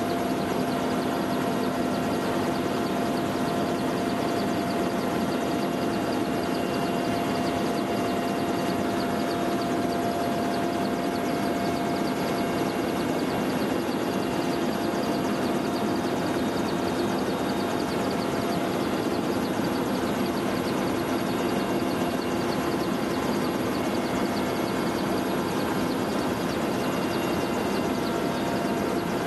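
Helicopter in flight heard from inside its cabin: a steady engine and rotor din with a few constant whining tones running through it.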